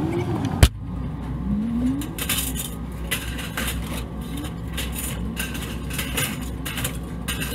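A pickup door slams shut once, then metal gutter sections clank and scrape in an irregular run as they are pulled out of the truck bed and dumped, heard muffled from inside the cab over a steady low hum.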